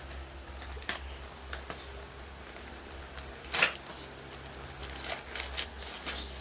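Gift-wrapping paper rustling and tearing in short, irregular bursts as heavily taped paper is picked at and pulled off a present, with the loudest rip about three and a half seconds in.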